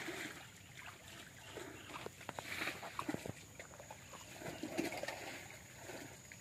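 Faint, scattered splashing and squelching in shallow, muddy canal water as a man wades and gropes for fish by hand, with small clicks and sloshes now and then.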